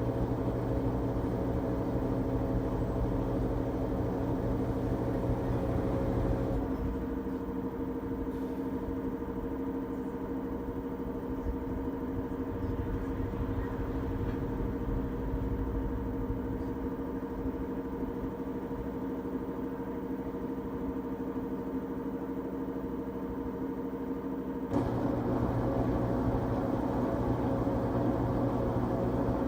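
LG Tromm WD-CR101C front-loading washing machine running mid-cycle with a steady motor hum. About six seconds in, part of the running sound cuts out, leaving a quieter hum, and it starts again abruptly near the end.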